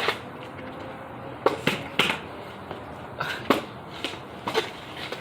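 Skateboard clattering: a string of sharp, irregularly spaced knocks and clacks, about eight in five seconds, as the board's deck and wheels hit the ground.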